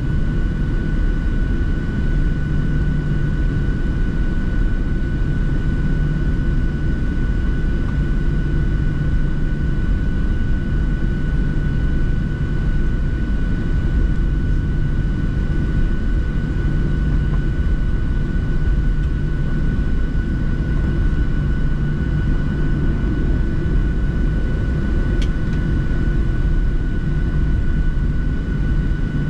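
Steady cabin noise inside a Boeing 737-700 airliner, its CFM56-7B jet engines running, with a thin steady whine over a low rumble that swells and fades every few seconds.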